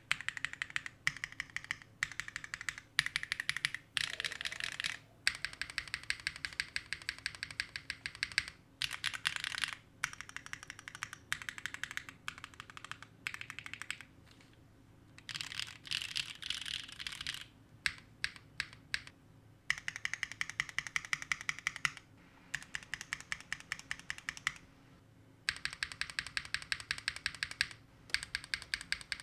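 Mechanical keyboard with Gateron Sage linear switches, a Neo60 Core, being typed on in fast bursts with short pauses. Near the end of the first half the typing slows to separate single keystrokes.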